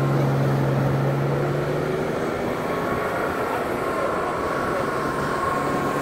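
Car engine running steadily, its hum fading about two seconds in and leaving a steady rushing noise.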